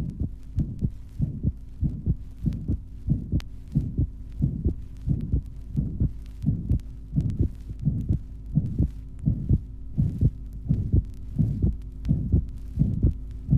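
Heart sounds of an atrial (interatrial) septal defect, recorded at the second intercostal space left of the sternum: a regular, fast heartbeat with a soft systolic murmur and a doubled (split) second sound, over a faint steady hum.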